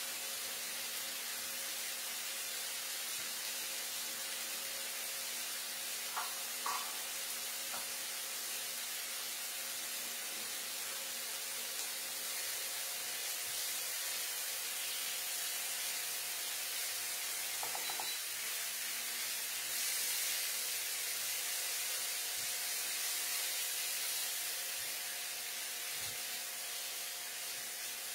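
Marinated chicken pieces sizzling steadily as they fry in oil in a nonstick pan, over a steady low hum. A few light clicks of a silicone spatula against the pan come about six seconds in and again near the middle.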